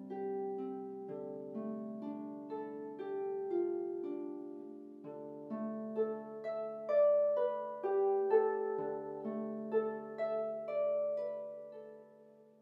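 Solo harp playing a slow, wintry original piece: plucked notes and chords ringing over low bass notes, swelling in the middle and dying away near the end.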